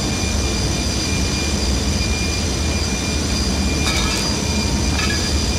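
Steady low rumble with constant thin high-pitched tones over it, as of running machinery, with a brief faint sound about four seconds in.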